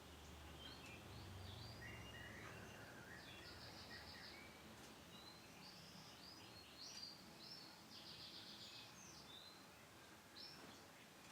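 Canary chirping faintly, short high calls and slides with two quick rattling trills, one about a third of the way in and one past the middle, over a steady low hiss.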